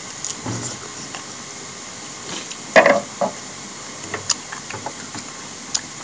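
Close-up eating sounds: chewing on pork hock, with light clicks of wooden chopsticks against a glass bowl of noodle soup and one louder mouth noise about three seconds in.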